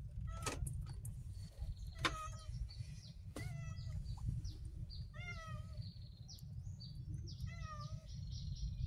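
Short, high animal calls like mewing, coming a few at a time in quick groups, with a few sharp clicks over a steady low rumble.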